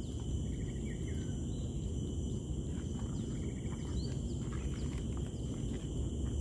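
Outdoor ambience: a steady high insect whine and a few faint bird chirps over a low, continuous rumble.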